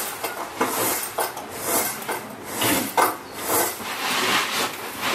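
Bricks being shifted by hand, scraping and knocking against each other and the floor in a run of short, irregular bursts.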